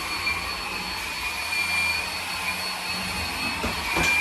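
Hoover ONEPWR cordless stick vacuum running steadily, its motor giving a steady high whine, with a short knock near the end.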